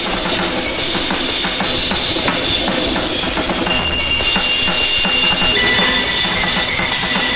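Harsh noise music: a loud, dense wall of distorted noise, with thin high whistling tones that jump to new pitches every second or two over a fast, irregular churning in the low end.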